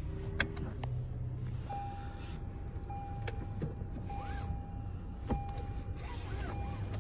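Inside the cab of a 2022 Toyota Tundra pulling away while towing a car on a dolly: a steady low rumble of engine and road noise. From about two seconds in a thin, steady whine runs over it, broken by short gaps and a couple of brief squeaks, with a few sharp clicks.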